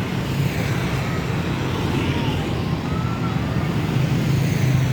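Steady road traffic noise with a heavy vehicle engine running close by; no bus horn sounds.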